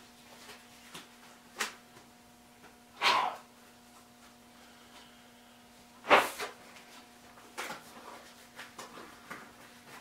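Scattered knocks and clatters of objects being handled in a workshop, the loudest about three seconds in and just after six seconds, over a faint steady hum.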